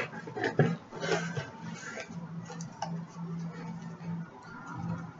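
Small clicks and soft rustling of packaging and gift items being handled, over a low hum that keeps stopping and starting.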